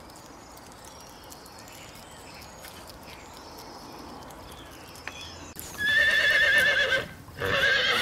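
A horse whinnying twice, each call a loud, wavering, shaky tone lasting over a second, starting about five and a half seconds in after a stretch of faint background hiss.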